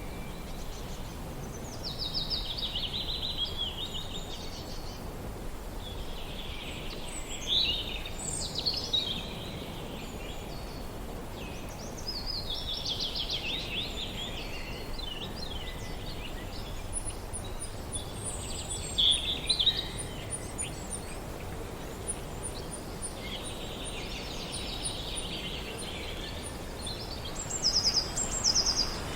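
Steady wind through a forest, with several songbirds singing over it: a chirping phrase every few seconds, and a thin, very high, rapid trill in the middle stretch.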